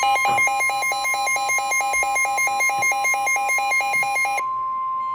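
Weather radio warning alarm: the broadcast's steady 1050 Hz NOAA Weather Radio alert tone, which signals that a warning message follows. Over it, a pulsing beep about four times a second stops about four seconds in, leaving the steady tone alone.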